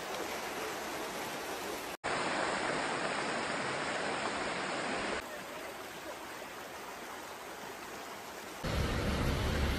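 Steady rush of water, from floodwater or heavy rain, heard as a run of short clips. The sound changes abruptly about two seconds in, again a little past halfway, and again near the end.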